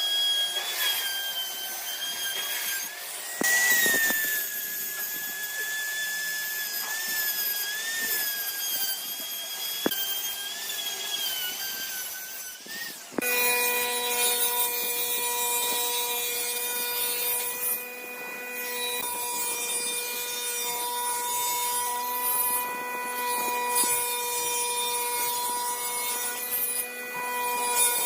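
Electric power tool working wood, its motor whine wavering in pitch as it cuts. About thirteen seconds in, the sound changes abruptly to a steadier, lower-pitched whine.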